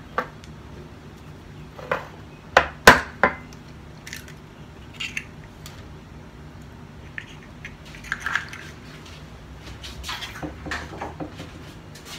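Eggs being cracked and tipped from a small glass cup into a glass mixing bowl: a string of sharp taps and clinks of shell and glass, the loudest two close together about three seconds in, with softer taps later.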